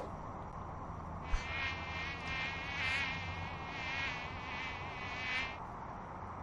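A mosquito whining close to the microphone for about four seconds, its high pitch wavering as it circles. A short tap comes just as it starts.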